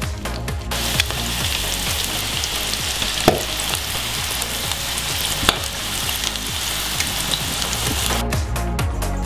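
Breaded squid rings deep-frying in hot oil: a steady sizzle with a few sharp pops. It sets in about a second in and cuts off near the end, over background music with a steady beat.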